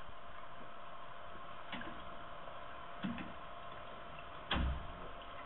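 Clicks and knocks from a metal-framed glass entry door being tampered with in a screwdriver break-in attempt, the loudest a thump about four and a half seconds in, over steady hiss and a faint hum from the security camera's microphone.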